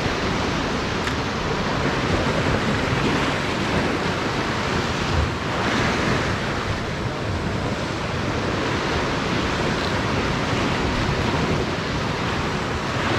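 Ocean surf washing in as a steady rush, with wind buffeting the microphone.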